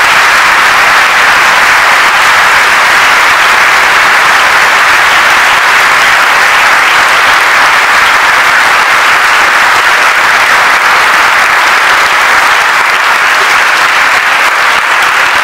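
Audience applauding, a loud, steady wash of clapping.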